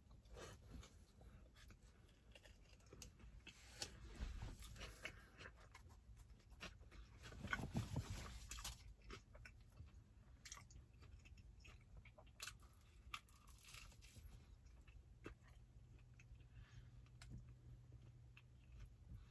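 A person biting into and chewing a slice of pizza, faint throughout, with louder stretches of chewing about four and eight seconds in.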